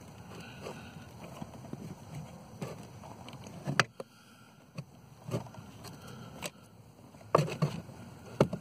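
Scattered clicks and knocks over a low rustle: hands and tools handling parts while a car's blower motor is being fitted back in under the dash.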